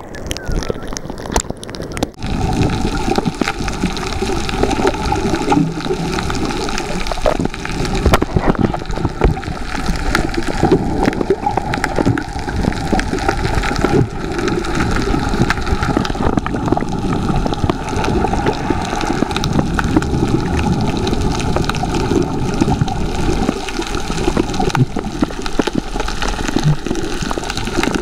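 Water noise heard from under the surface: a dense, steady rushing and gurgling full of fine clicks, starting about two seconds in when the microphone goes under.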